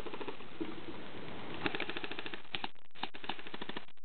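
Airsoft rifles firing in rapid full-auto bursts: a quick clicking rattle of roughly fifteen shots a second. The bursts are clearest from about one and a half to two seconds in, and again near the end.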